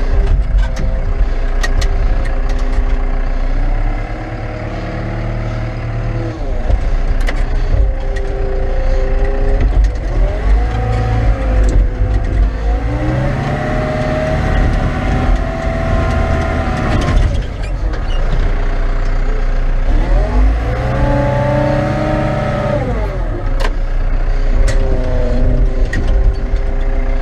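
Caterpillar 924F wheel loader's diesel engine working under load, its pitch rising and falling several times as it is throttled up and back down, with a few sharp knocks.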